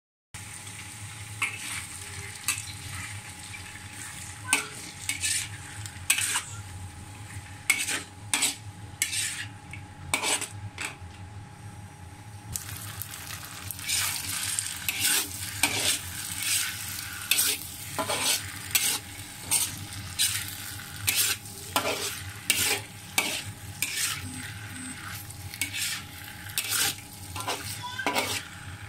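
Sliced Huangyuan rice cake stir-fried in a wok: the spatula scrapes and knocks against the pan many times over a steady sizzle, and the sizzle grows louder about halfway through.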